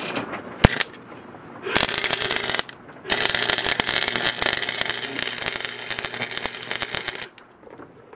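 Wire-feed welder's arc crackling as a bead is laid on a steel clamp, in two runs: a short burst about two seconds in, then a longer steady crackle of about four seconds that cuts off near the end. A single sharp click comes under a second in.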